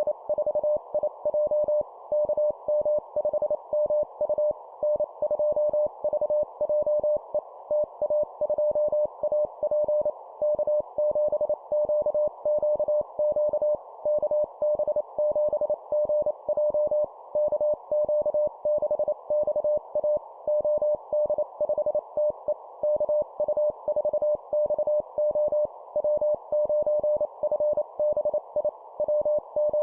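Morse code (CW) sending amateur radio call signs at 25 words per minute: a single steady beep keyed on and off in quick dots and dashes, over a constant hiss like a receiver's noise.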